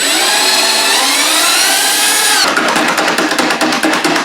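Power drill with a spade (paddle) bit boring into the top of a bucket: the motor whine climbs in pitch for about two seconds, then gives way to a rapid chattering as the bit cuts.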